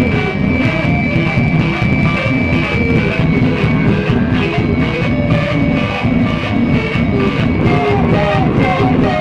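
Rock music with a steady, even beat, and a thin high note held through most of it that drops out near the end.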